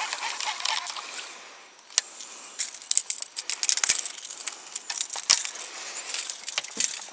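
A brief splash of water, then a run of sharp clicks, knocks and rattles as fishing rods, a baitcasting reel and tackle are handled and set down on a plastic kayak deck.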